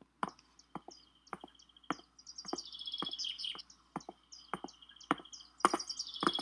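Cartoon sound effects: birds chirping and trilling, with two busier runs of trills midway and near the end. Under them, light taps come about twice a second, in step with walking.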